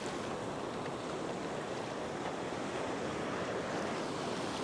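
Ocean surf breaking and washing through the shallows, a steady rush of water.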